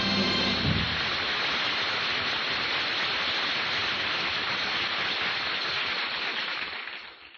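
Radio studio audience applauding as the band's final chord dies away, the applause fading out near the end.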